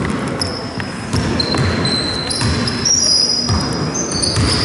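Basketball play on a wooden sports-hall court: basketball shoes squeaking in many short, high-pitched chirps, more of them from about two seconds in, with the ball bouncing.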